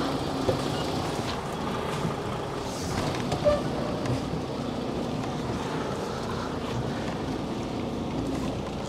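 Lorry engine running steadily at low speed during a slow, tight manoeuvre, heard from inside the cab, with a brief light knock about three and a half seconds in.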